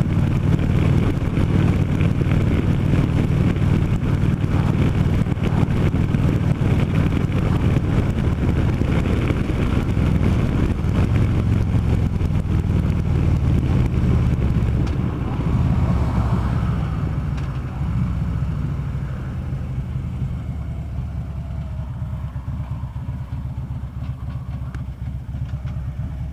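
Harley-Davidson V-twin motorcycle engine running at road speed, with heavy wind and road noise on the microphone. About sixteen seconds in the bike slows: the wind noise falls away and the engine runs quieter.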